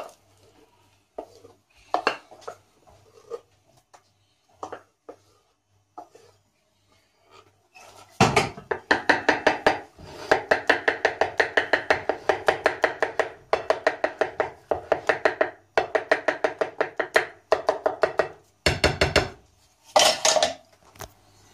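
Wooden spatula scraping mashed potatoes out of a metal bowl onto a ceramic plate with a few scattered knocks, then about eight seconds in a fast run of taps and scrapes, several a second, as the mash is patted and spread across the plate.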